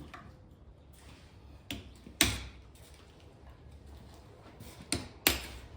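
Hammer blows on metal: two pairs of sharp strikes about three seconds apart, each with a short ring after it.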